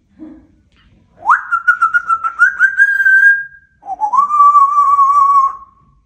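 African grey parrot whistling two long notes. The first swoops up quickly and then holds high with slight wavers. The second starts just after, lower, and is held steady.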